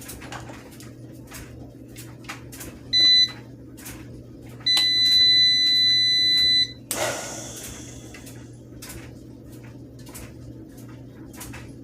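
Electronic beeper sounding a short beep, then a longer beep of about two seconds, at a steady high pitch, followed by a brief rush of noise, over a low steady hum and scattered light clicks.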